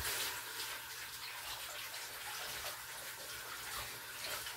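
Water running from a tap in a steady rush that starts suddenly and dies away near the end.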